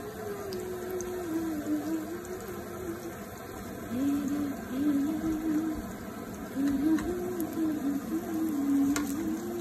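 Hot oil sizzling steadily in a frying pan as potato strips deep-fry. Over it runs a simple low tune, one wavering note at a time, that stops and starts a few times and is the loudest sound.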